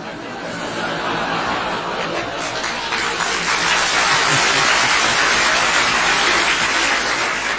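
A large audience laughing together, the laughter swelling from about a second in to a loud peak around three seconds and dropping away just before the end.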